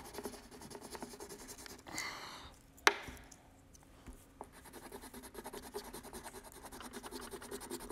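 A colored pencil scribbling on paper in quick back-and-forth strokes, shading in colour, with a sharp tap a little before three seconds in.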